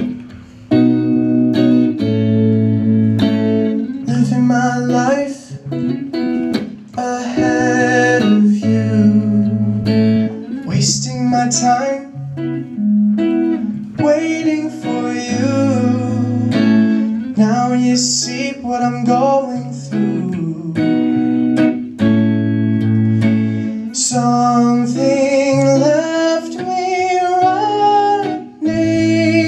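A song performed live: guitar chords with a singer's voice.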